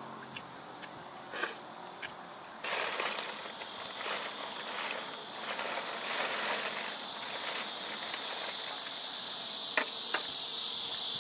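Cicadas buzzing in a dense, steady high chorus that comes in suddenly about three seconds in. Through it come the crinkling rustles of a plastic bag being rummaged through, and two sharp clicks near the end.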